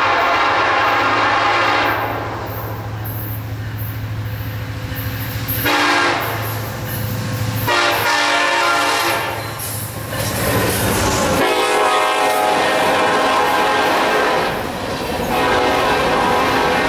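A BNSF SD70ACe diesel locomotive's air horn sounds several long blasts with short breaks as the coal train closes on the road crossing. From about two-thirds of the way in, the locomotive passes close by and the rumble and clatter of the coal hopper cars' wheels on the rails takes over, with the horn still going over it.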